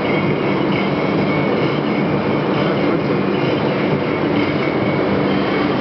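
Steady, loud machinery drone, a continuous rumbling hiss with a few faint constant tones running through it.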